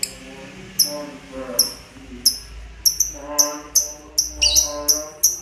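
Sharp, high bird chirps repeating and quickening from about one a second to about three a second, played as masteran training calls for a lovebird. Under them runs a lower, wavering pitched sound like background music.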